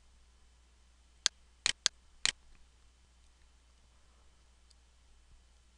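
Computer mouse button clicking: four sharp clicks within about a second, two of them in quick succession as a double-click, which opens a folder in a file dialog.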